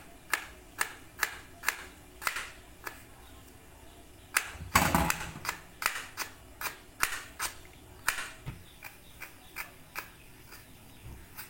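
Kitchen knife slicing thinly through food on a cutting board, a sharp tap at each stroke, about two a second. There is a brief pause a few seconds in, then one louder clatter about halfway.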